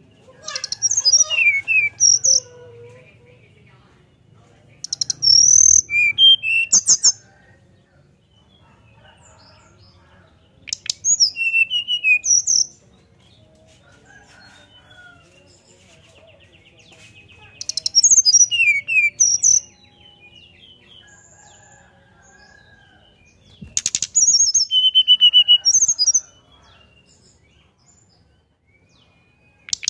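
Brown-chested jungle flycatcher singing its whistled song in five short phrases of high notes, each about two seconds long, with pauses of three to four seconds between them.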